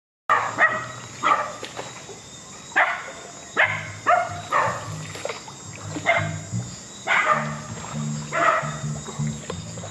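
Dogs barking again and again, a dozen or so sharp barks spaced less than a second apart.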